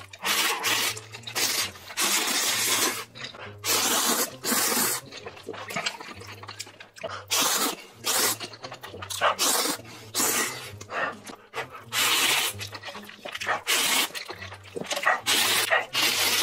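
A man slurping spicy ramen noodles off chopsticks: a dozen or so loud, wet slurps, each under a second, with short quieter pauses between them.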